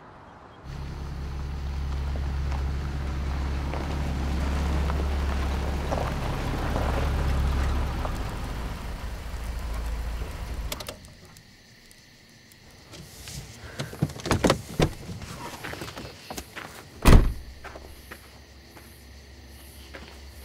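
A low steady drone for about ten seconds that cuts off suddenly. It gives way to quiet car sounds: scattered clicks and handling noises, then one loud thud of a car door shutting.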